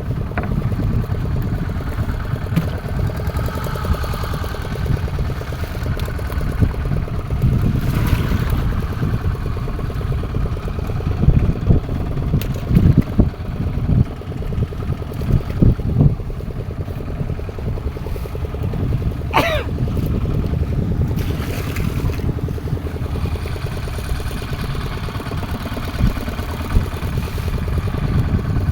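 Fishing boat at sea with a steady low rumble from its running motor and wind, broken by a few knocks around the middle and a short squeak about two-thirds through.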